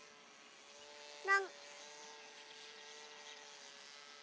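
Faint, steady high whine of a small model airplane's tiny combustion engine flying high overhead. About a second in, a short, loud voice-like call cuts in briefly.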